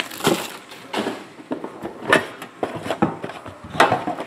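Knocks and scrapes of a metal trading-card tin being handled and set down, with a hand working at its lid. The loudest knocks come about two seconds in and again near the end.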